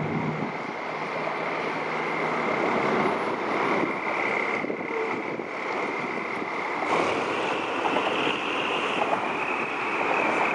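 SRT diesel-electric locomotive approaching slowly, its engine running with a steady high whine that rises a little about seven seconds in.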